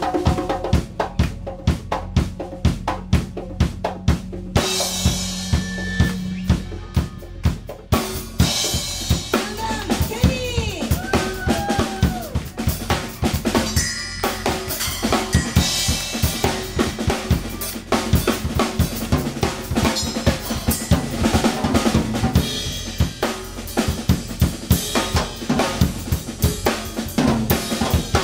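Drum kit and congas playing a percussion-led break in a live rock band: kick, snare and rimshots in a steady groove over a held bass note, the playing growing busier about eight seconds in.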